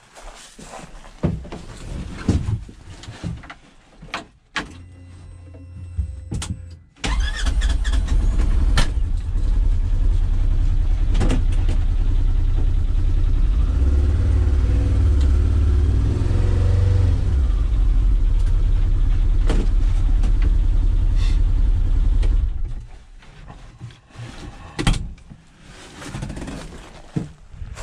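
2016 Polaris Ranger XP 900's twin-cylinder engine starting about seven seconds in, after a short steady hum, then running steadily for about fifteen seconds before shutting off suddenly. Scattered clicks and knocks come before and after it.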